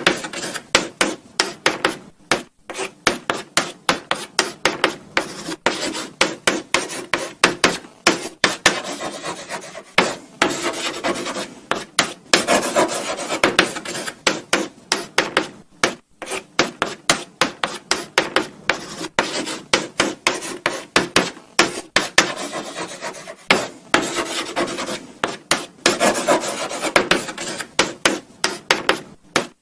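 Chalk writing on a blackboard: quick runs of short scratchy strokes and taps, several a second, broken by brief pauses between words.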